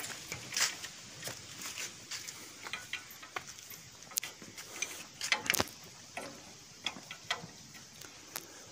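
Steel spanner clicking and clinking on the nuts of a tractor diesel engine as they are loosened by hand, in irregular metallic ticks with a louder flurry about five seconds in.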